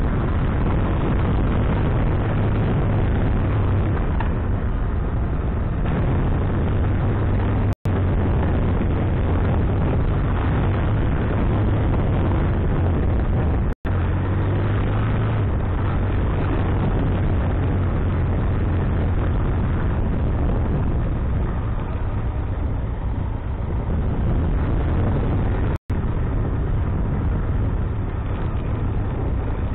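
Benelli TRK502X motorcycle's parallel-twin engine running at low speed on a gravel track, heard through a camera mounted on the bike as a steady rumble mixed with road and vibration noise. The sound cuts out for an instant three times.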